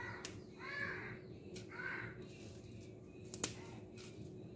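A crow cawing twice, about a second apart, followed by two sharp clicks in quick succession.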